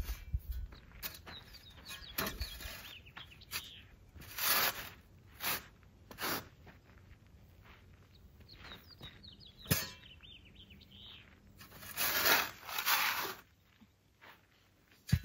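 A shovel scraping and digging into dry, sandy ground in several separate strokes, with one sharp knock partway through. Birds chirp faintly in the background.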